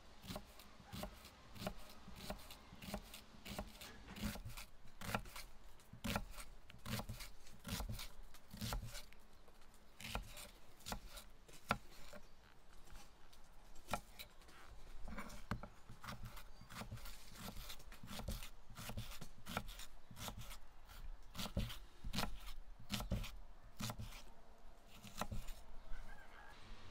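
Kitchen knife cutting through peeled onions on a thick round wooden chopping board: an uneven run of crisp cuts, a few a second, each ending in a knock of the blade on the wood.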